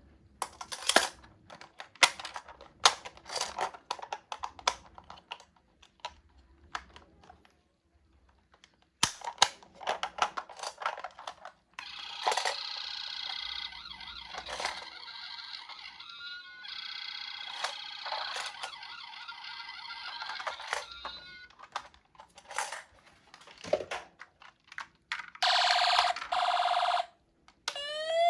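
A run of sharp clicks and taps of toy minicars being handled and set down, then a steady rasping sound for about nine seconds with a short break, and two brief steady bursts near the end.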